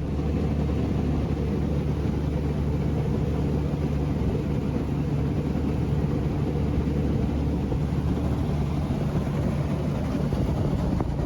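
9.9 hp Mercury outboard motor on a small aluminium skiff running at a steady speed, with a constant low hum and rushing noise.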